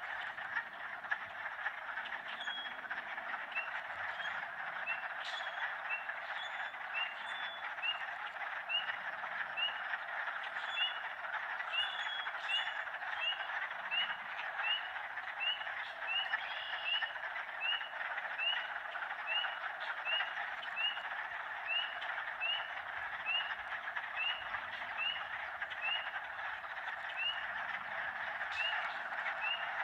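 Spring peeper giving short rising peeps about once a second, over a dense, steady chorus of frogs and toads in a wetland.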